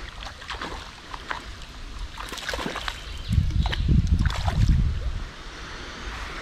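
Flowing stream water with scattered splashes and rustling crackles. About three to five seconds in there are low rumbles of wind buffeting the microphone.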